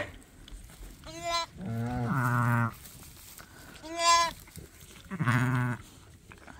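A ewe and her newborn lambs bleating back and forth: four calls in turn, two short high-pitched lamb bleats and two longer, lower bleats from the ewe.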